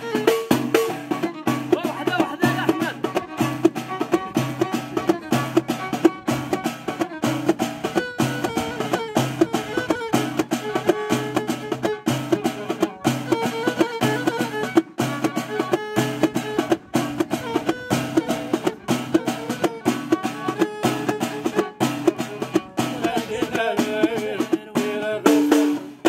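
Live Moroccan Amazigh folk music: hand-held frame drums beat a steady, quick rhythm while a violin played upright on the knee carries the melody. The playing breaks off at the very end.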